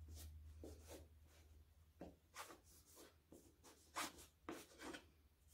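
Faint, short strokes of a solvent-wet cloth rubbed back and forth over small aluminum plates, about a dozen wipes, taking layout dye off the metal.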